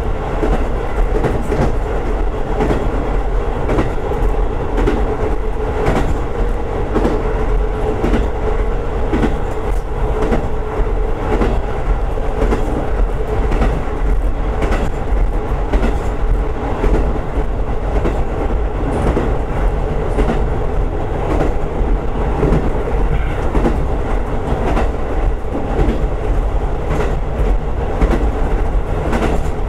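Diesel train running along the line, heard from on board: a steady running noise with repeated wheel clicks over the rail joints.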